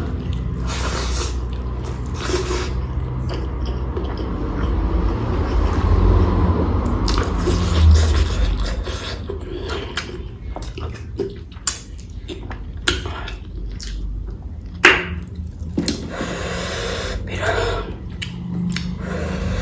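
Close-miked eating: wet chewing and mouth noises of rice and potato-cauliflower curry, with sharp smacking clicks through the second half over a steady low hum.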